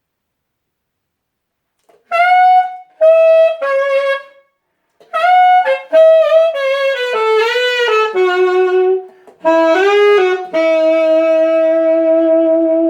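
Saxophone played through a 3D-printed mouthpiece, a pop melody. After about two seconds of silence come three short detached notes, then a phrase that steps downward with bends, ending on a long held low note.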